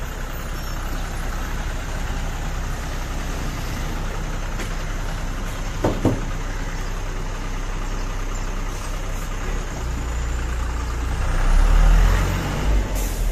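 School bus engine idling at the roadside with its door open, a steady low hum, swelling louder for a moment near the end. A short sharp sound cuts in about six seconds in.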